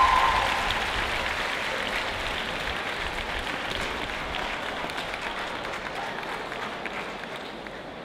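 Audience applauding after a dance performance, the clapping slowly dying away.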